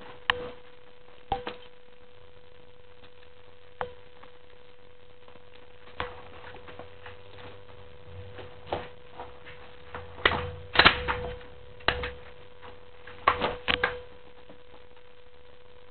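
Pistol gunshots at an outdoor range: single shots at irregular intervals, with quick strings of two or three shots about ten and thirteen seconds in. A faint steady hum runs underneath.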